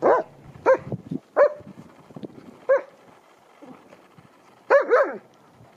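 A dog giving short play barks while wrestling with another dog: about six brief barks, unevenly spaced, with two in quick succession near the end.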